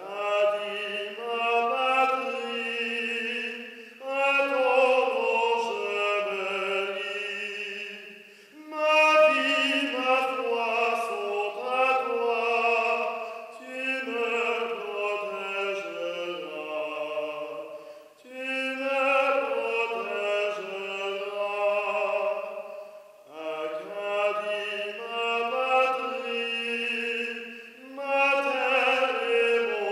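A trained voice singing a slow song in an operatic style, in long phrases with short breaks between them.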